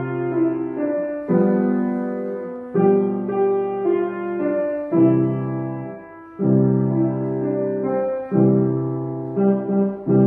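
Grand piano played with both hands: a Christmas tune in full chords, each chord struck and left to ring and fade before the next.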